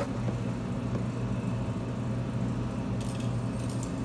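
Steady low mechanical hum throughout, with faint small metallic rattles near the end as steel BBs are poured into the loading port of a Daisy Red Ryder BB gun.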